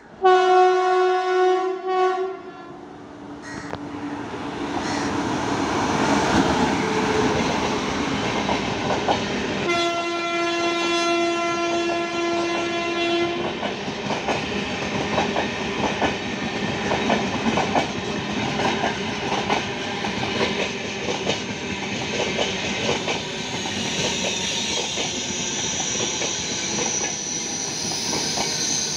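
Tejas Express passing at about 100 km/h: the locomotive's horn sounds two long blasts, the first about two seconds long at the start and the second about three seconds long starting about ten seconds in. Then the coaches rush past with the wheels clattering over the rail joints, and a high steady whine sets in near the end.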